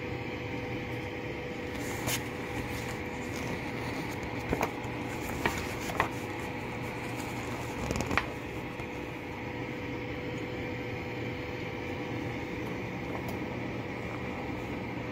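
Halogen air fryer's convection fan running with a steady hum and a faint constant tone while it cooks. A few soft paper rustles and taps from manual pages being handled, one around eight seconds in.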